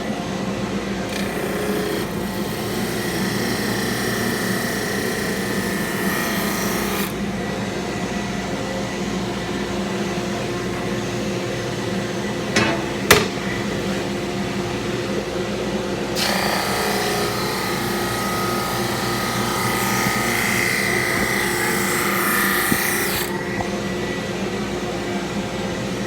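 Electric sander running with a steady motor hum, while a wooden board is pressed against it and sanded in two long stretches of rough hiss. A couple of sharp knocks about halfway through.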